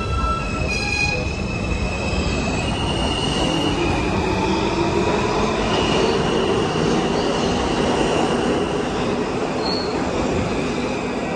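Kawasaki R160 subway train pulling out and running past on steel rails: a steady loud rumble of wheels with high-pitched wheel squeal throughout, and a tone that rises as the train gathers speed.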